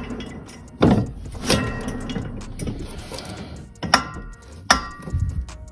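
Snowmobile clutch and jackshaft spun and rocked by hand: a soft whirr with several clunks as the clutch is grabbed and moved. The shaft bearings turn without grinding, the sign that they are still sound and have no play.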